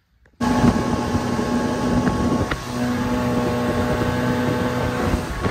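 Sterndrive motorboat running underway at speed, its engine holding a steady note over the rush of the wake, with wind buffeting the microphone. It starts abruptly about half a second in. The engine is running as it should.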